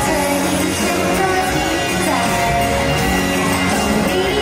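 A woman singing a Thai pop song live into a handheld microphone over a recorded backing track, heard through stage speakers.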